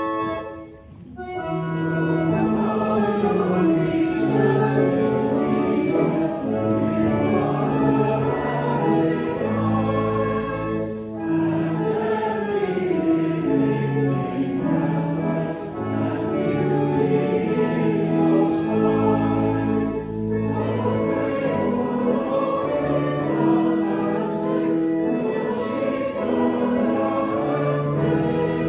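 Congregation singing a hymn with church organ accompaniment. The organ's held chords break off briefly about a second in, then the singing and organ carry on steadily.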